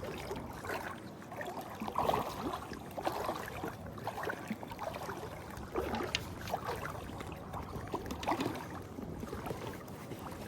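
Water splashing and lapping around a float tube in irregular small bursts.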